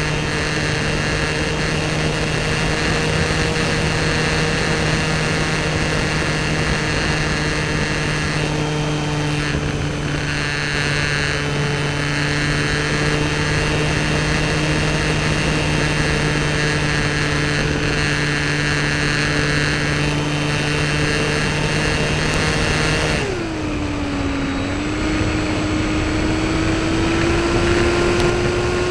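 Electric motor and propeller of a small RC model T-28 Trojan plane in flight, heard from a camera on the airframe: a steady whine over wind rush. About 23 seconds in the pitch drops suddenly, then climbs slowly back to a new steady tone.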